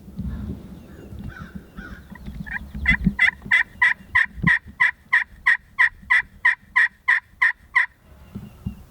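Turkey yelping: a long, even run of about twenty yelps, about four a second, starting a few seconds in. Low rustling comes before it.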